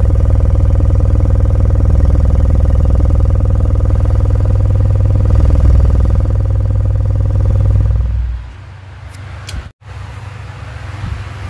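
JBL 1200-watt car subwoofer played loud by a JBL class D amplifier under a torture test, giving out heavy, sustained bass. The bass drops away sharply about eight seconds in, and the sound stays much quieter after a brief dropout near the end.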